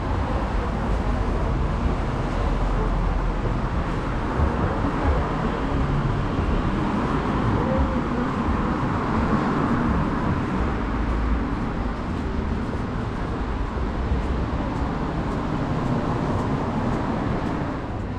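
Street traffic noise: road vehicles running along a city street, a steady rumble without a break.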